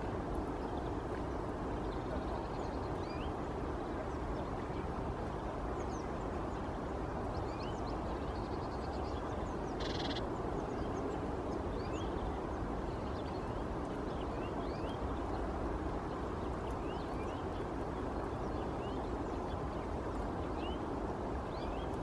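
Steady outdoor background rumble, with faint, short, high bird chirps scattered all through and one brief, fuller call about ten seconds in.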